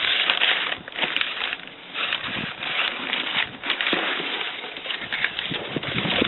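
A cardboard box and its packing rustling in irregular bursts as a new starter motor is unboxed by hand.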